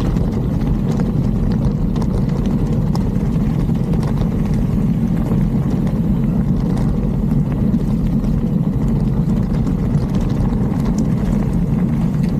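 Mountain bike riding down a rocky trail: a steady low rush, typical of wind buffeting the microphone at speed, with scattered knocks and rattles of the tyres and frame over stones.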